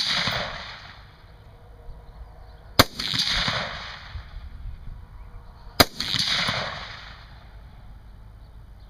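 AR-15 rifle fired twice in slow single shots, about three seconds apart, each crack followed by a long echo rolling back for a second or more. The echo of an earlier shot is still dying away at the start.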